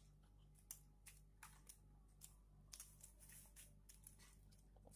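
Near silence: faint room tone with a low steady hum and scattered small clicks and ticks.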